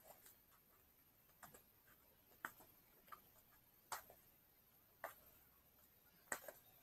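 Fingernails picking and scraping at a firmly stuck sticker on a book, making faint, short clicks about once a second at an uneven pace.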